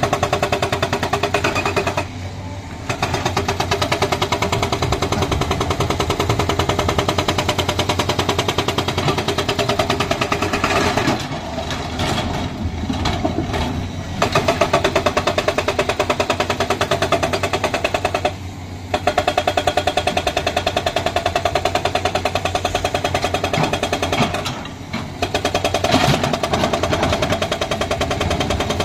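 Hydraulic rock breaker on a JCB excavator hammering into stone in rapid, continuous blows, stopping for a moment several times and starting again.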